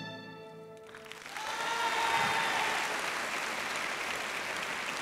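The last notes of the routine's accompaniment music fade out, then an audience starts applauding about a second in, swelling quickly and holding steady.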